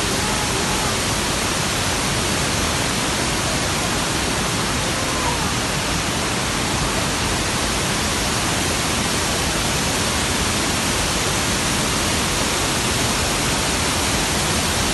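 Rainwater pouring down as heavy-rain waterfalls: a steady, unbroken rush of falling water.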